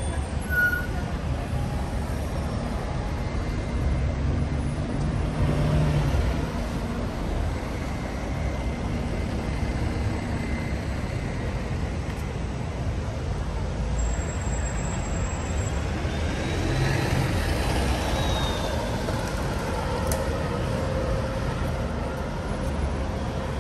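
Street traffic dominated by double-decker buses: a steady low diesel engine rumble that swells as buses run and pull away, with a faint high whine rising and falling about two-thirds of the way through.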